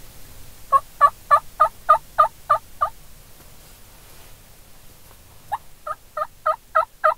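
Two runs of hen turkey yelps from a hunter's turkey call, seven or eight evenly spaced notes each at about three a second. The first run starts about a second in and the second comes near the end. The yelps are calling to the gobbler to make him raise his head.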